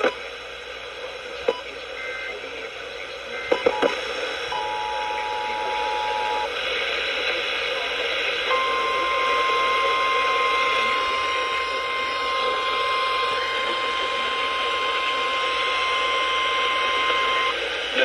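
Weather radio receiver picking up an alert through heavy static: a few faint short data chirps and clicks, then a two-tone attention beep for about two seconds, then a steady single-tone warning alarm for about nine seconds, all under constant hiss that grows louder partway through.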